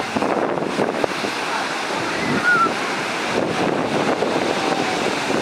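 Ocean surf washing in a steady, continuous rush.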